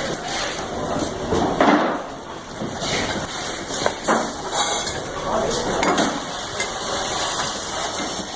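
Factory-floor noise: a steady hiss of machinery with irregular knocks and clanks, the loudest about two seconds in and several more between four and six seconds.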